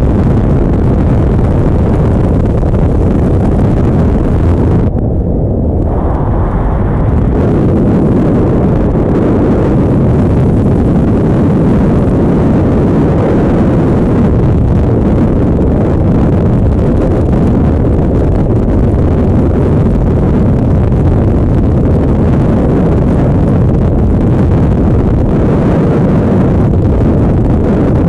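Loud, steady rush of freefall wind buffeting the camera microphone, with a brief muffling about five seconds in.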